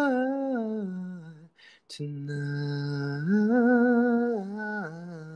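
A man singing a slow, gentle melody a cappella, holding long wordless notes. A falling phrase fades out about a second and a half in, and after a short break a new line of held notes begins.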